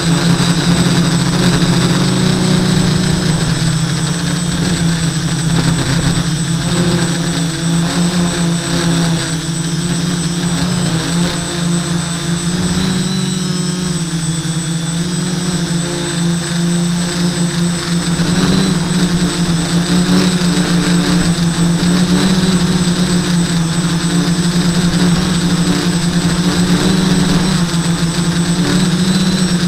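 A Hobbyking SK450 'Dead Cat' quadcopter's four Sunnysky 980kv brushless motors and propellers buzzing steadily in flight, heard from the onboard camera. The pitch shifts slightly with throttle and dips a little in the middle.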